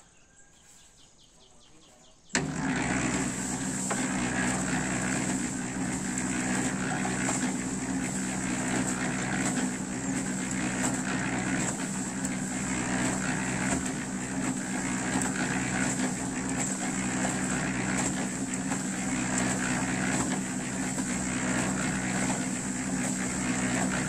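Drum concrete mixer's motor comes on suddenly about two seconds in and runs steadily, a loud mechanical drone with a hiss on top.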